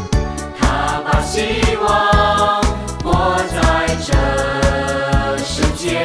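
Upbeat pop-style song with a choir singing over a steady beat, played as backing music for a group exercise routine.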